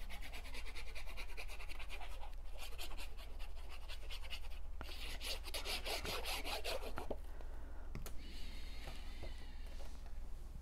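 Paper being rubbed and smoothed by hand as a cardstock panel is pressed down onto a card. It comes as a scratchy rustling in three stretches of a couple of seconds each, then quieter handling later on.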